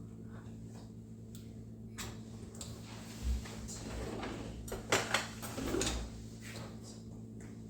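Kitchen utensils and containers being handled: a few scattered clinks and knocks, with a couple of dull thuds about a third of the way in and again past the middle, over a steady low hum.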